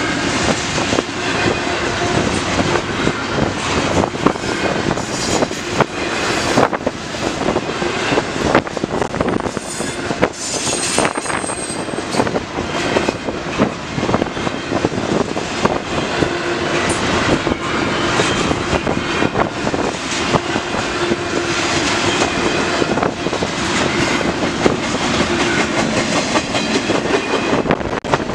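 CN intermodal freight train rolling past close by: a continuous loud rumble and clatter of steel wheels over the rails. A brief high wheel squeal comes about ten seconds in.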